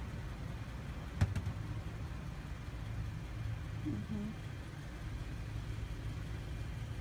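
Car engine idling with a steady low hum, heard from inside the car, with a single sharp click about a second in.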